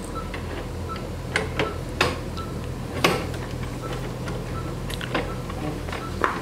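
Sharp metallic clicks and knocks as the metal bar and clamp of the operating-table head-frame attachment are released and moved, the loudest about three seconds in. Under them is a steady equipment hum and a short beep that repeats about every three-quarters of a second, like a patient monitor's pulse tone.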